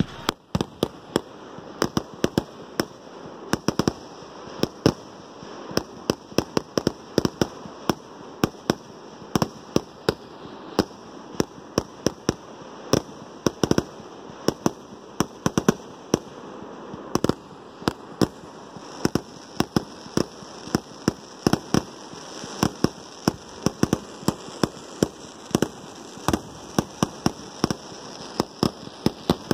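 Fireworks going off in quick succession: a steady run of sharp bangs and pops, about two to three a second, over a continuous hiss of sparks.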